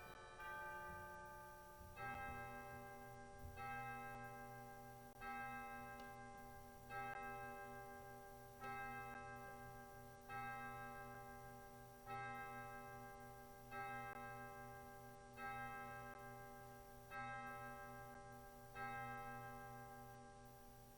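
A single bell tolling, struck eleven times about every second and a half to two seconds, each stroke ringing on into the next, after the fading tail of a faster peal of several bells.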